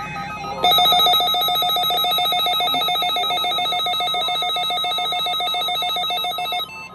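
A loud electronic ringing tone, rapidly pulsing on a few steady pitches, starting about half a second in and cutting off suddenly near the end.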